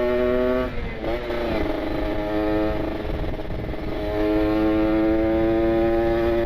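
Kawasaki Ninja RR 150 two-stroke single-cylinder engine through an R9 carbon aftermarket exhaust, ridden on the road with a steady buzzing note. The note drops off about a second in as the throttle eases, runs lower for a couple of seconds, then picks up again from about four seconds in and holds steady.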